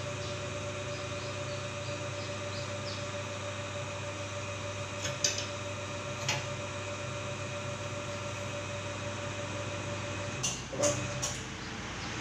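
Electric pipe-and-hollow-section rolling machine running with a steady motor hum. There are a couple of light clicks midway and a few metallic knocks near the end.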